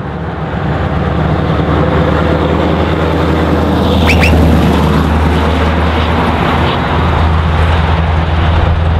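Scania R560's 16-litre V8 diesel on straight pipes: a truck driving past with a deep, steady exhaust note that grows louder up to about halfway through as it comes by. A brief high whistle sounds just as it passes.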